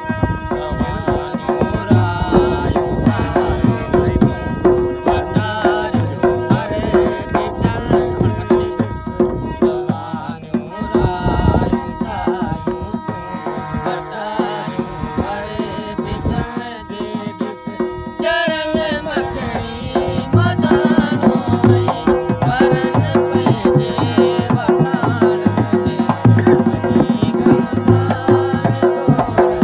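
Thari folk music: a harmonium holding steady reed chords under a hand-played two-headed wooden barrel drum (dholak) keeping a fast, even rhythm, with a man singing over them. The music fills out and gets louder a little over halfway through.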